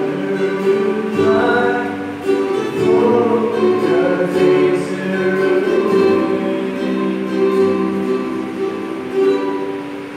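A man singing into a microphone while strumming a ukulele; the song gets quieter near the end.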